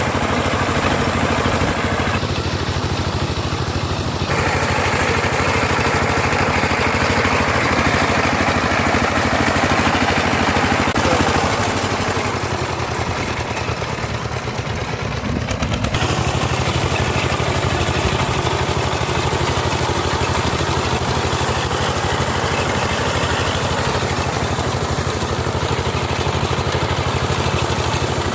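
Small engine of a hand-operated wheat harvester running steadily under load. It eases off a little for a few seconds past the middle, then picks up again.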